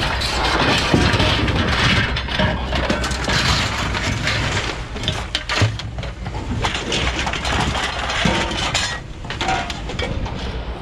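Loose scrap metal clattering and clinking in a rapid jumble of sharp impacts as pieces are tipped and thrown into bins.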